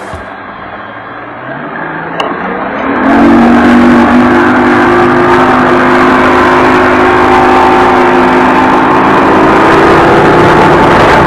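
Mercury 150 outboard motor driving a bass boat: its pitch climbs over the first few seconds, then it gets much louder at about three seconds and runs steadily at speed. A steady rush of wind and churned water runs under it.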